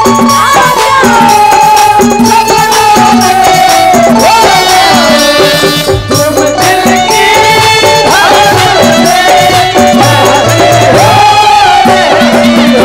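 Bhojpuri folk stage band playing an instrumental interlude: a wavering, gliding melody line over steady percussion.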